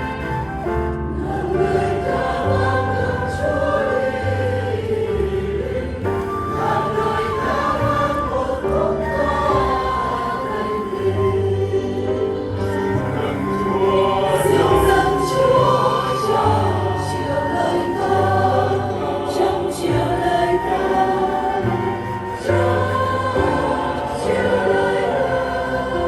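Choir singing sacred music over sustained low accompaniment.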